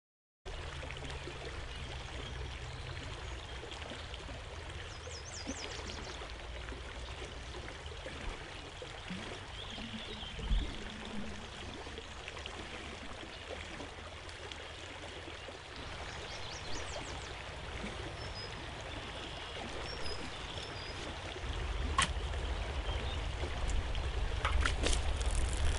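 A stream of water running steadily, with a few short high chirps now and then. There is a sharp click near the end, and the water gets louder over the last few seconds.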